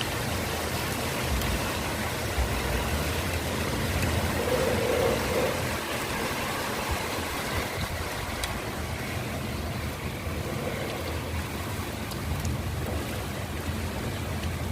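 Storm noise: a steady rush of wind and rain with a heavy low rumble of wind buffeting the microphone.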